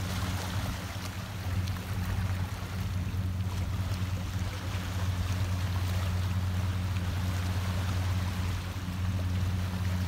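Small waves lapping and washing over shoreline rocks, under a steady low hum.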